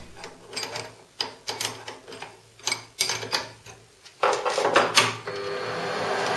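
A few light clicks and knocks of handling at a benchtop metal lathe, then, about five seconds in, the Optimum lathe's motor starts and the chuck spins up to a steady running whir.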